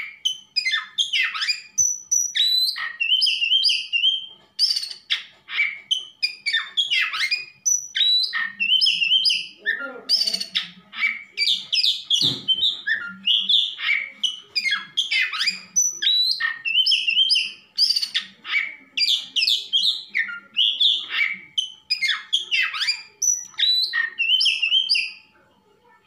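Oriental magpie-robin singing: a long, unbroken run of varied loud whistles, sweeping chirps and rapid chattering phrases, stopping near the end.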